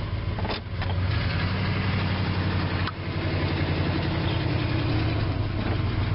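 Dodge Power Wagon's carbureted engine idling, heard from inside the cab. It picks up slightly about a second in, and there is a single sharp knock about three seconds in. The engine has just been cold-started on manual choke after sitting for weeks, and the owner says its carburetor and valves may need adjusting.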